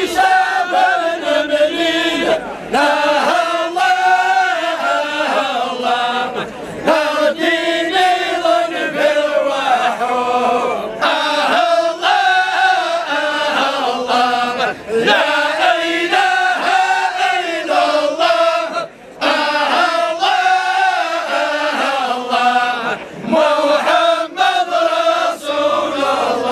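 A group of men chanting a Kabyle Sufi dhikr together, in long sung phrases broken by short pauses for breath about every four seconds.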